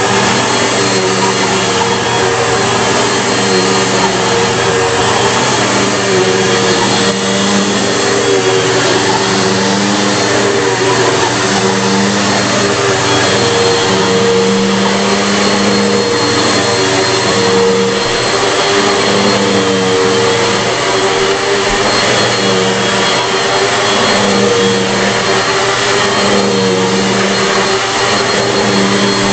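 A Bissell PowerForce bagless upright vacuum cleaner (2008, model 6582) running steadily while vacuuming. Its hum swells and fades every second or two.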